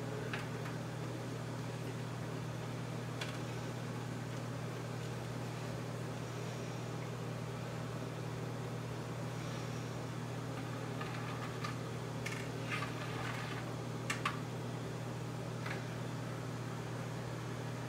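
Steady low hum, with a few faint clicks and taps of needle-nose pliers against a small metal pan of melted wax and a wire drying rack. The sharpest taps come as a quick pair about 14 seconds in.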